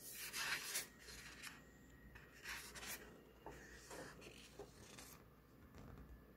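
Hand rubbing on and turning the glossy pages of a magazine: papery rubbing and rustling in several short bursts, loudest in the first second and again about two and a half seconds in.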